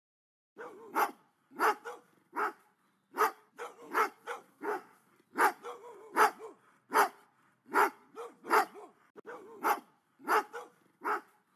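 Dog-barking sound effect: after about half a second of silence, dogs bark again and again, roughly two barks a second.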